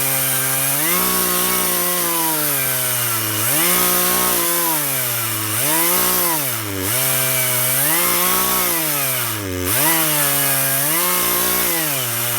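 Poulan two-stroke chainsaw running at full throttle while ripping lengthwise along a log to mill a beam. The engine speed repeatedly sags under load and picks back up, every second or two, more often toward the end.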